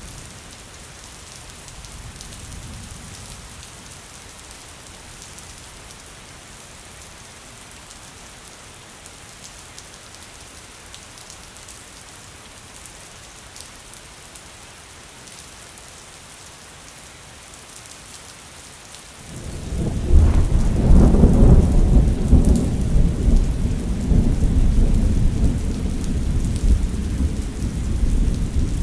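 Steady rain falling. A faint low rumble comes a couple of seconds in. About two-thirds of the way through, a loud roll of thunder breaks suddenly and keeps rumbling.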